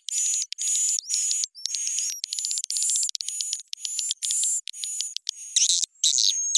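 Swiftlet calling track for a swiftlet bird house: rapid, high, buzzy twittering chirps of edible-nest swiftlets in quick runs broken by short gaps, edited with raised pitch and tempo to lure swiftlets in. Louder, sweeping calls come near the end.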